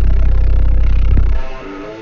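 Bass-heavy music played loud through a car's pair of Skar EVL 12-inch subwoofers in a ported trunk box tuned to about 49 Hz. The deep bass drops out about a second and a half in, leaving a quieter melody.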